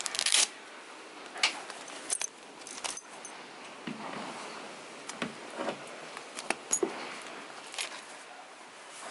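Metal buckles and clips on a horse's mesh rug clinking, with the fabric rustling as its straps are handled: a scattered run of clinks and clicks, sharpest right at the start.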